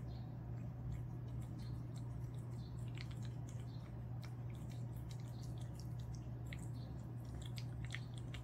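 A cat eating wet minced beef from a ceramic bowl: soft, wet chewing and smacking clicks, coming thicker from about three seconds in, over a steady low hum.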